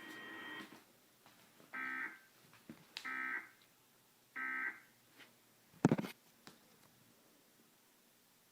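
EAS End of Message signal: three short bursts of SAME digital data tones, each under half a second and about a second and a half apart, sent to close the Oregon emergency alert test. A single sharp, loud click follows a little after the third burst.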